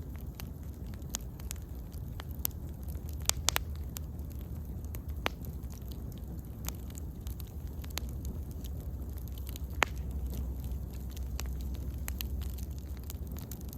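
Wood bonfire crackling, with irregular sharp pops and snaps over a low steady rumble. A few louder pops come about three and a half seconds in and one near ten seconds.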